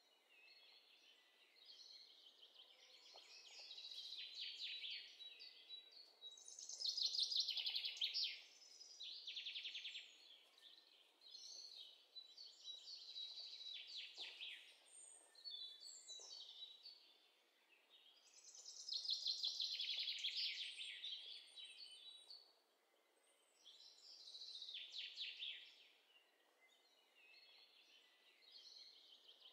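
Birdsong sound effect: several small birds chirping and trilling, in waves that swell and fade every few seconds.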